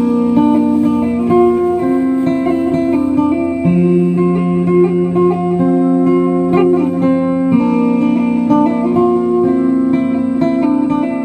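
Background music played on guitar, with plucked and strummed chords at a steady level.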